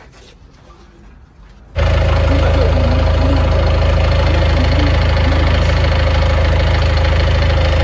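Engine idling steadily and loudly, cutting in abruptly about two seconds in.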